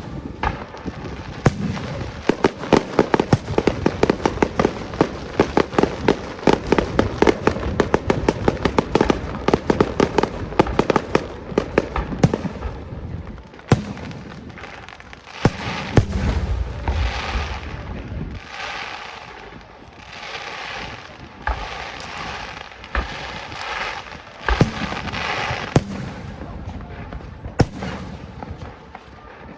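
Fireworks going off. A rapid run of sharp bangs for about the first dozen seconds, then separate louder booms, some with a deep rumble, and stretches of crackling.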